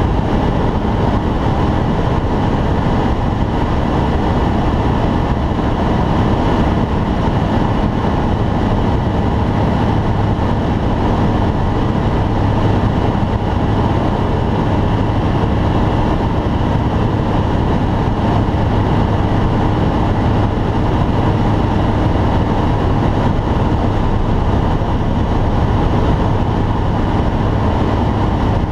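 Steady drone inside the cockpit of a T-10M light aircraft in flight: the engine and propeller running at a constant speed under a wash of airflow noise, unchanging throughout.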